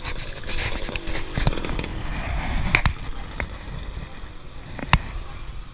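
Wind buffeting and road rumble on the microphone of a riding cyclist's action camera, broken by several sharp clicks and knocks as the bicycle rattles along, the loudest about five seconds in.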